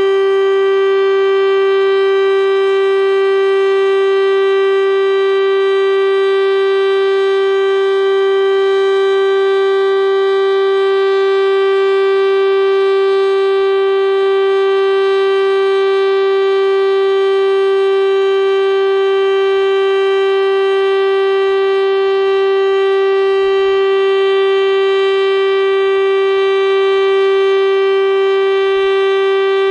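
Federal Sign & Signal STL-10A civil-defense siren, driven by a 10 HP motor, sounding its full-alert signal at full speed: one loud, steady tone with many overtones, holding the same pitch throughout.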